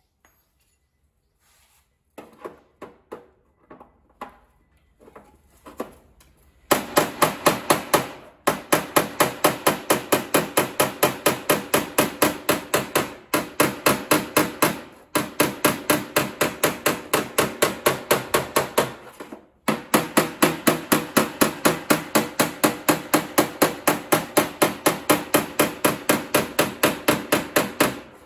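Hammer tapping the sheet-metal rear fender lip of a Mazda RX-7 (FC), beating the rolled lip back toward its original shape. A few light, scattered taps come first. Then a long, even run of ringing metallic blows follows, several a second, with a few brief pauses.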